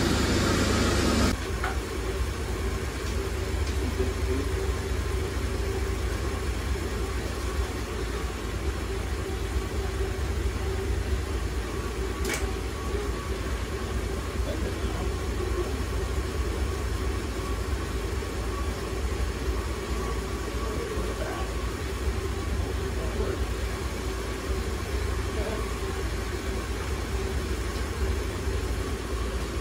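A vehicle engine idling steadily, with a louder noisy stretch that cuts off about a second in and a single sharp click near the middle.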